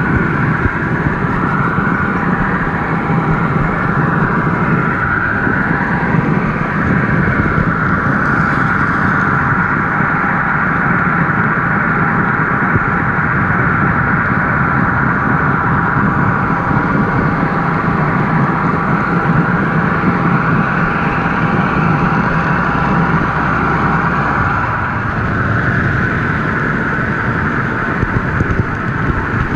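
Model train running along its track, heard from the car carrying the camera: a steady high motor whine over a low rumble of wheels on rail.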